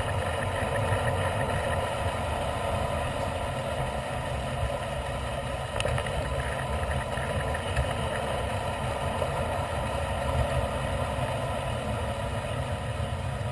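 Steady rush of wind on a moving bicycle's camera microphone, mixed with tyre and road noise as the bike rolls along.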